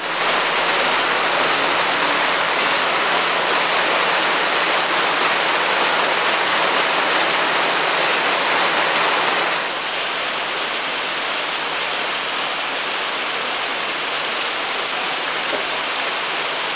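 Water pouring in several cascades over a stone fountain wall into a shallow pool, a steady rushing splash. About ten seconds in it gives way to a quieter, steady hiss.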